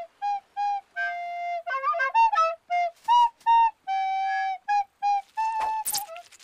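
Short flute melody of separate clear notes, with a quick run of ornamented notes about two seconds in. A brief hiss comes near the end.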